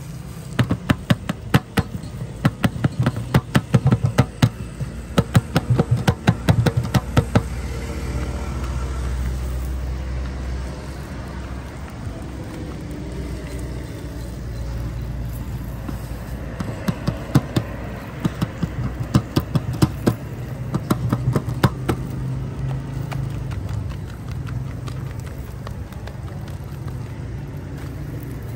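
Rapid sharp tapping and slapping at a large iron tawa where parathas are being cooked, in two runs of several seconds each, over a steady low rumble.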